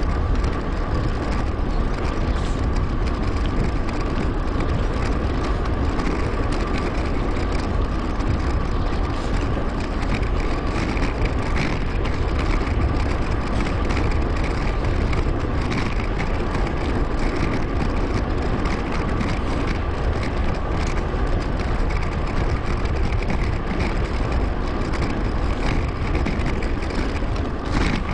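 Steady wind rush and tyre rumble from a mountain bike ride picked up by an action camera's microphone, with a crackly texture and a thin steady whine running through it.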